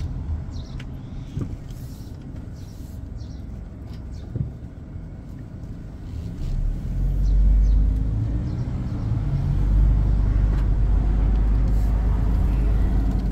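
A car driving: low engine and road rumble, which grows clearly louder about six and a half seconds in, with a few faint clicks.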